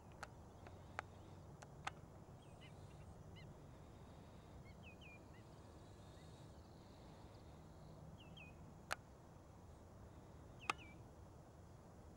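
Faint calls of black-winged stilts: short high notes in quick pairs, repeated every couple of seconds. Five sharp clicks are scattered through, and the loudest two come in the second half.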